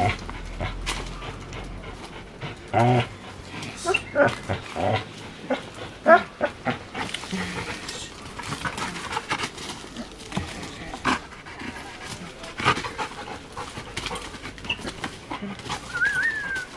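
Rottweiler making short, scattered growls and whines while it jumps at and tugs on a rope during a spring-pole workout, with panting and scuffling in between.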